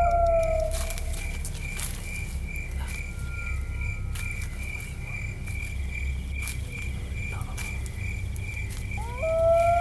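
Night insects chirping in an even, pulsing high trill, over a low rumbling drone. A pitched tone swells up and fades away just at the start and again near the end, and a few faint knocks fall in between.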